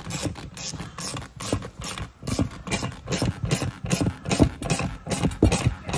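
Ratchet wrench clicking in quick, uneven strokes as it winds the screw of a manual tyre bead breaker down against an ATV tyre.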